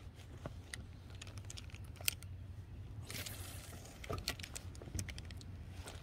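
Scattered light clicks and a brief rustle from handling fishing tackle, a wacky-rigged worm on a hook with a rubber band, over a low steady hum.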